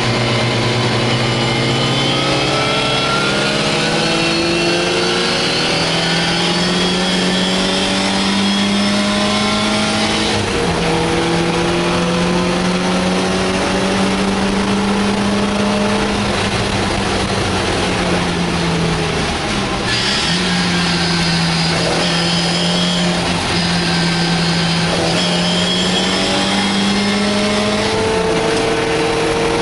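MGA sports car's four-cylinder engine at racing pace, heard from inside the open cockpit. It revs rising through the gears, with sudden drops in pitch at upshifts about ten seconds in and near the end, and a brief lift-off around twenty seconds in.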